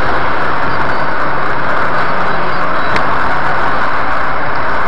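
Steady road and engine noise of a moving car, heard from inside the cabin through a dashcam microphone, with a small click about three seconds in.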